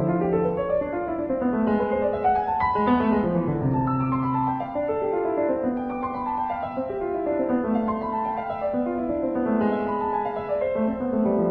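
Background piano music playing flowing runs of notes.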